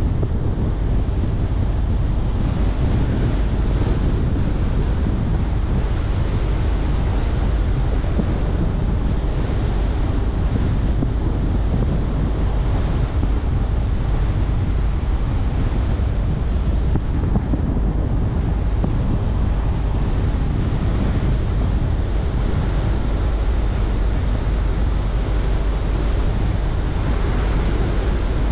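Steady rushing of wind and road noise from a car driving along, with no engine note standing out.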